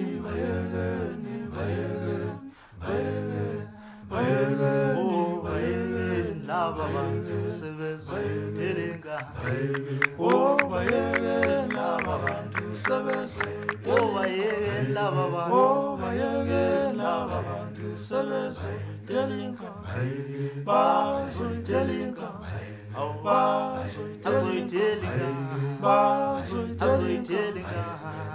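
Music: a song with singing voices over a steady, pulsing low beat.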